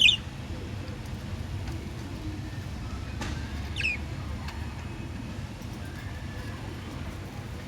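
Budgerigar giving two short, high chirps, one right at the start and one about four seconds in, over a steady low background rumble.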